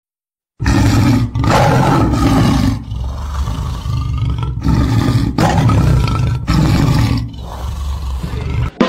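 A loud roaring sound in about six surges of a second or so each, with a heavy low rumble underneath, starting about half a second in. It gives way to band music at the very end.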